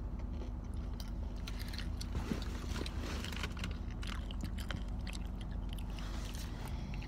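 Crunchy chewing of Takis, hot rolled tortilla chips: small irregular crunches from about a second in, over a steady low hum.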